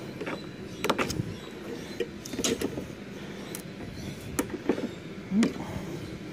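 Hand wire cutters snipping through a refrigerator's copper refrigerant lines and wiring, with a handful of sharp, irregularly spaced clicks and snaps and a short squeak about five seconds in.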